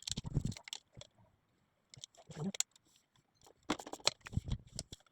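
Socket ratchet clicking in several short bursts as the 10 mm bolts on a Land Rover TD5's oil cooler housing are worked loose.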